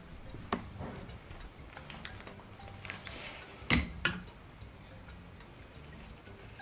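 A few light, sharp taps and clicks, the loudest a pair of knocks about halfway through.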